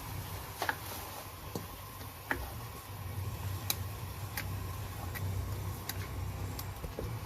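Cooking utensil knocking and clicking against a pan while curry paste is stir-fried, about a dozen irregular sharp clicks over a steady low hum.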